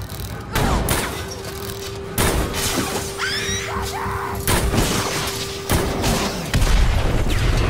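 Sci-fi film action soundtrack: sudden loud hits and crashes with rifle gunfire, over music and a steady held tone. High gliding shrieks come a little after three seconds in, and a deep rumble swells near the end.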